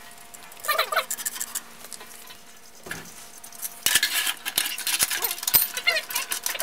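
Stainless steel frames of a rotary vibrating sieve clinking, scraping and knocking against each other as they are set in place and clamped. There are a few clinks at first, then a busy run of sharp metal knocks and scrapes through the second half.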